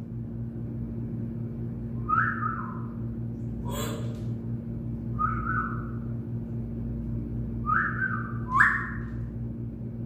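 A caged bird giving four short, clear whistles, each held briefly and dropping at the end, with a single short harsh rasp a little before the middle, over a steady low electrical hum.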